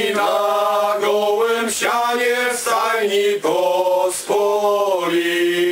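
A group of men singing a Polish Christmas carol (kolęda) together, with long held notes and short breaks between phrases.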